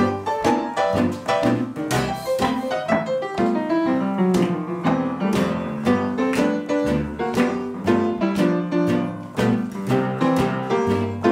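Upright piano playing an instrumental passage of a band song, struck chords on a steady beat over a low bass line, with other acoustic instruments backing it.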